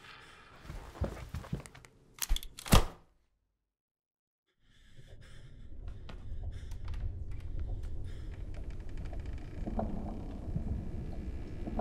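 Film sound design: a few soft knocks, then two or three sharp, loud cracks about two and a half seconds in. Dead silence follows for over a second, then a low rumbling drone fades in and holds steady.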